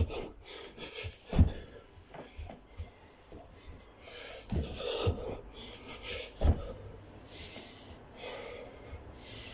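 A man breathing hard and fast, panting and wheezing, from the exertion of continuous burpees. Dull thuds come as his hands and feet land on the carpeted floor, the loudest a little over a second in and several more in the second half.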